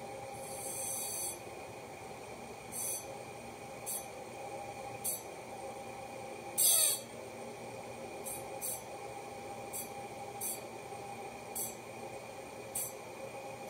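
Teletype synchronous AC motor running at reduced voltage (about 60 V) with a steady hum and whine, while a hand presses on it to load it. This adds short scraping friction bursts about once a second. The loudest burst, just before the middle, comes with a brief falling pitch.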